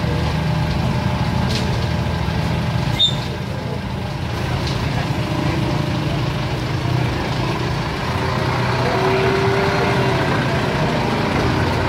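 Street traffic noise, with a vehicle engine running steadily nearby as a low rumble, and a single sharp click about three seconds in.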